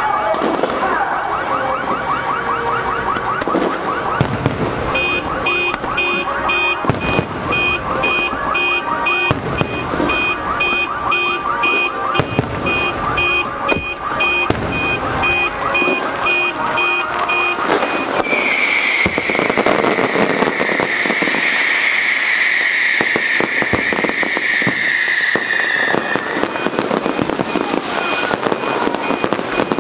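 Aerial fireworks display: dense crackling and popping of bursting shells. Over it, a high electronic alarm beeps about twice a second from about five seconds in, then gives way to a long, slightly falling high tone for about eight seconds before the beeping returns near the end.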